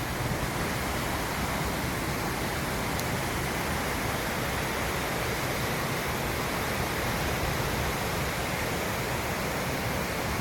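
Steady rushing of a river running over rapids.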